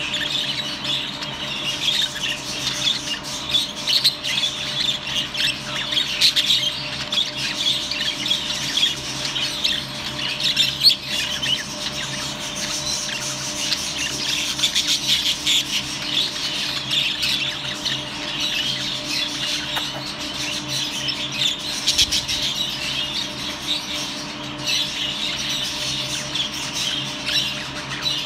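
A group of budgerigars chattering and squawking continuously, over a steady low hum.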